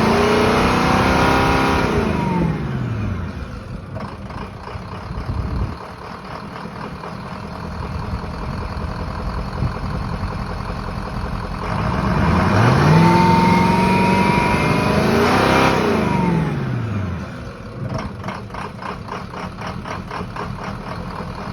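A 2004 vehicle's engine revving and falling back to idle twice: the first rev drops away within the first few seconds, and the second climbs about halfway through, holds for a few seconds and drops back. The engine runs at idle between the revs, with the rough idle and lack of power on take-off that the owner is chasing.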